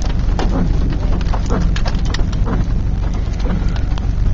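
Rain hitting the body and windshield of a car, heard from inside as a dense spatter of separate drop strikes over a steady low rumble.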